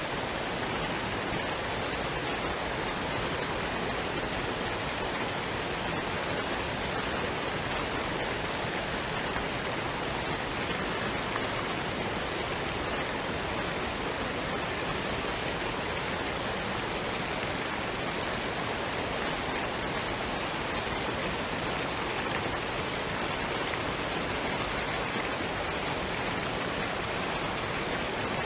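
Waterfall and stream water running, a steady, even rush.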